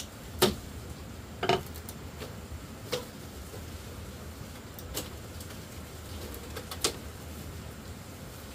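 A handful of sharp, irregularly spaced knocks or taps over a steady background hiss and hum. The first, about half a second in, is the loudest.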